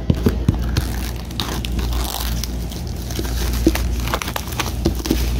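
Packaging of a boxed pair of bone-conduction headphones being opened: irregular scraping, crinkling and small clicks as the box's seal is slit and the wrapping handled.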